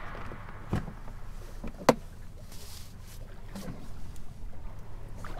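Plastic bait cooler lid knocking sharply twice as it is opened, then a hand sloshing in the water among live finger mullet, over a low steady rumble.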